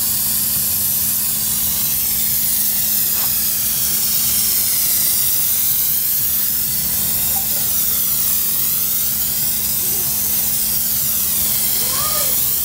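Aerosol can of Plasti Dip rubber coating spraying continuously: a steady hiss whose tone slowly sweeps up and down as the can is passed back and forth across the grille.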